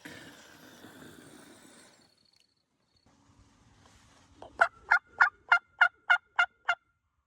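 A series of eight turkey yelps, evenly spaced about three a second, after a soft rustle at the start.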